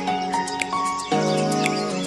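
Background music: sustained chords that change about a second in, with light percussive ticks.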